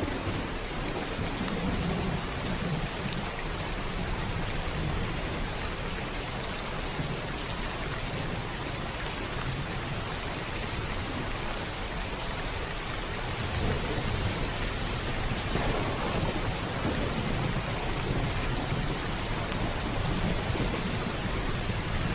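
Heavy rain pouring steadily on a roof, with low rolling thunder rumbling in the background near the start and again past the middle.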